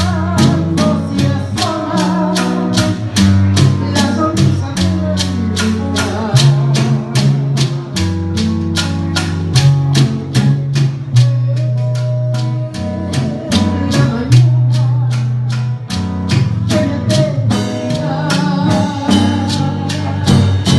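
Live band playing Puerto Rican music: a wavering sung melody over a steady bass line and guitar, with a percussion instrument striking evenly about three times a second.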